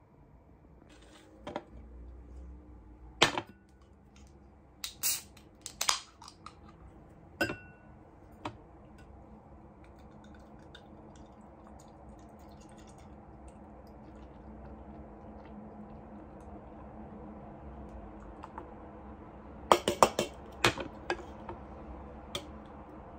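Sharp clicks, knocks and clinks of a beer can and a glass being handled on a glass tabletop, one clink ringing briefly. In the middle, beer is poured from the can into the glass with a soft, steady fizzing hiss that slowly grows, and a quick cluster of clinks comes near the end as the can and glass are lifted.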